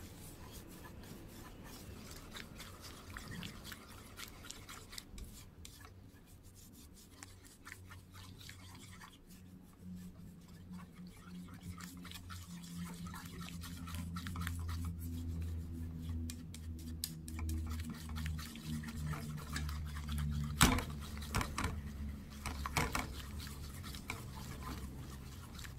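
Chopsticks stirring and scraping scrambled egg in a small frying pan, a rapid run of light scrapes and ticks against the pan, with a sharper knock about 21 seconds in and another near 23 seconds. A low steady hum runs under it.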